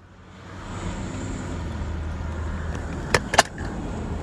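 Car cabin noise while driving: a steady low engine and road hum that swells over the first second, with two sharp clicks a little over three seconds in.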